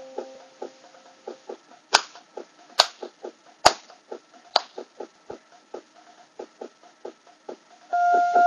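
Small electronic keyboard's built-in rhythm pattern ticking along at a steady beat, with four louder sharp hits about a second apart in the middle. About eight seconds in, loud held keyboard melody notes start up over it.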